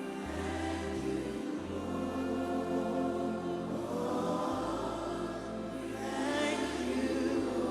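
Slow live gospel worship music: sustained keyboard chords with a steady bass line, and sung voices holding long notes.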